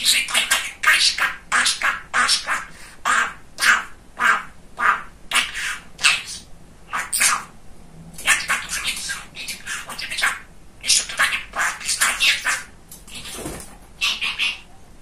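Pet budgerigar chattering: a fast, unbroken run of short, high, scratchy syllables, the babbling of a talking budgie.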